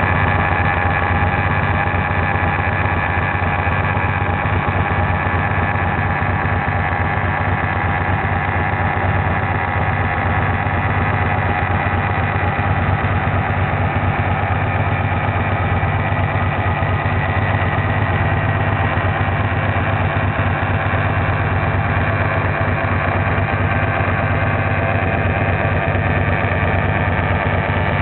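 Liquid-cooled motorcycle engine idling steadily, with no revving. It carries an odd noise that the owner cannot place, and that is still there after he checked the radiator coolant and tightened the engine mount nuts.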